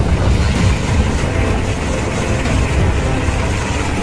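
Navy Sea King helicopter hovering low overhead: a loud, steady rush of rotor and turbine noise with a rapid low chop from the blades.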